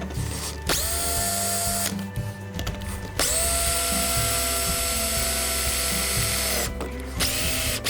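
Power drill boring a hole through a metal foot-rest plate: the motor whines up to speed for about a second, then runs steadily for about three and a half seconds, with a few short bursts near the end.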